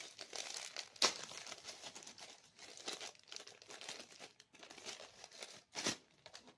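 Plastic packaging crinkling and being torn open by hand, with two sharp louder crackles, about a second in and near the end.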